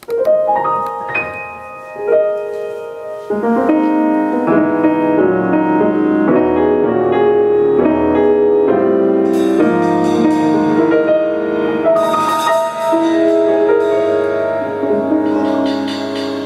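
Live instrumental music led by piano, with fuller, lower chords joining about three seconds in.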